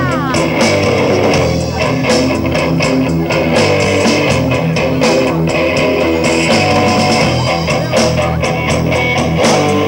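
Live rock band playing: electric guitars over a drum kit, with steady loud music and regular drum hits throughout.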